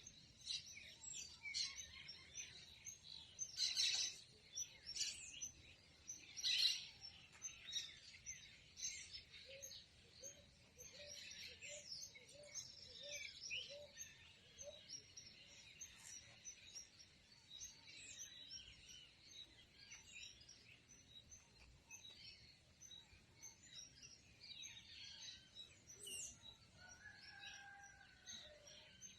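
Dawn chorus of many birds chirping and calling over one another, loudest a few seconds in. A run of low, evenly spaced notes, about two a second, comes in the middle, and a short sliding whistle near the end.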